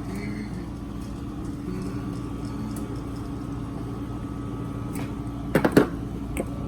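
Steady mechanical hum with faint distant voices, broken by a quick cluster of sharp knocks about five and a half seconds in.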